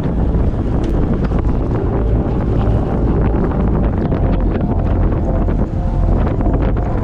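Heavy wind noise buffeting an action camera's microphone on a bicycle ridden at racing speed, a steady low rumble with a few faint ticks.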